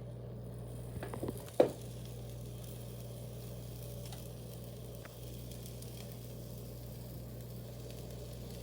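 Pancake batter sizzling steadily in a hot pan, with a sharp tap about a second and a half in.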